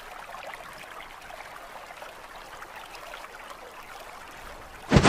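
Faint, steady jungle ambience sound effect: a rushing like running water with scattered small ticks. It ends in a loud, sudden burst right at the end.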